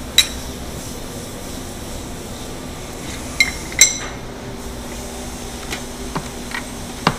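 Metal ice cream spades clinking against each other and the frozen granite slab: a sharp clink just after the start, two ringing clinks about three and a half seconds in, then a few lighter ticks, over a steady background hum.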